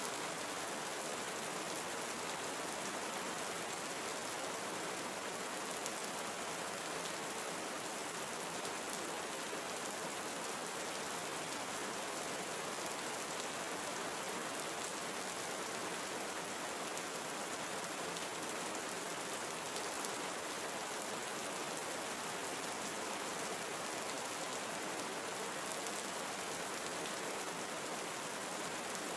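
Steady rain falling in a tropical forest: an even, unbroken hiss of many drops.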